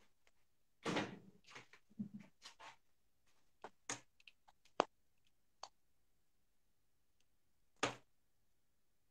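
Handling noise of a phone and its wired earphones being set up close to the microphone: a rustle and a run of small clicks and knocks over the first five or so seconds, then one more knock near the end.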